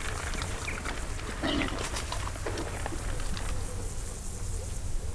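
A sow and her piglets grunting and squealing, with a cluster of calls in the middle, over a steady low rumble.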